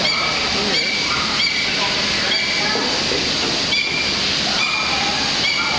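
Murmur of many voices over a steady rushing hiss. Short high chirps repeat roughly once a second.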